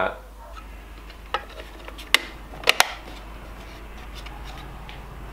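Sharp plastic clicks as the clear snap-on cover is fitted over a blade-fuse distribution block. There is a faint click, a louder one about two seconds in, then a quick pair near three seconds.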